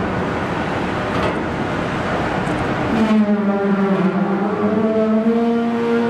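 Lift-span machinery of the Heim lift bridge running, a steady mechanical rumble. About three seconds in, a droning whine comes in and holds, wavering slightly in pitch.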